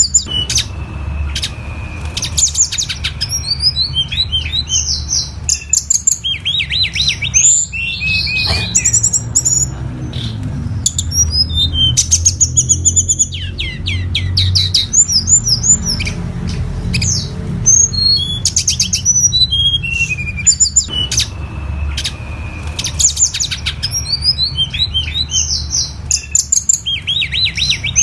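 A tledekan gunung songbird singing a long, varied song of rapid high chirps, trills and falling whistles, with a long steady whistle near the start and another about 21 seconds in. A steady low hum runs underneath.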